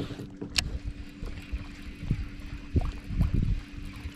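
Small fishing boat on the water: a steady low hum under irregular low thumps and knocks, with one sharp click about half a second in.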